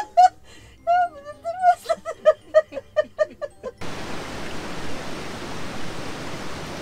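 A few seconds of talking voices, then an abrupt cut to a steady, even rushing noise.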